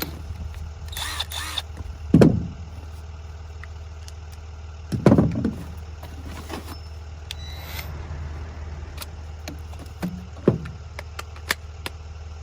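A truck engine idling as a steady low drone, with two heavy thuds about two seconds and five seconds in, a lighter knock near the end, and scattered small metallic clicks.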